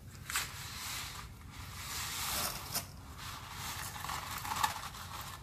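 A cardboard box of dry spaghetti is handled and tipped open, and the stiff dry noodles slide and scrape out of it into a pot. It makes a rustling, scraping noise with a few sharp clicks.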